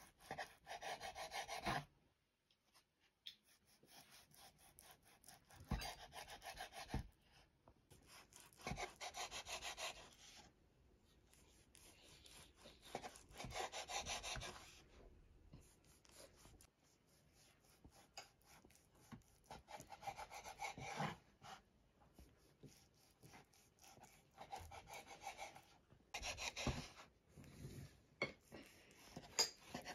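Repeated rubbing strokes on a hard surface: about seven separate scratchy stretches, each one to two seconds long, coming every few seconds.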